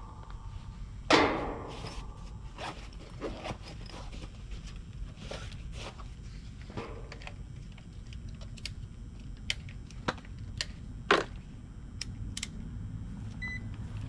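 Scattered clicks and knocks of hand tools and a clamp meter being handled at an air-conditioner condenser, the loudest about a second in and again near the end. A short electronic beep follows as the meter is switched on, over a low steady rumble.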